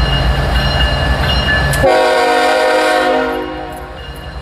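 An approaching diesel freight locomotive rumbles, then sounds its multi-chime air horn in one blast about two seconds in, which fades out over the next second or so.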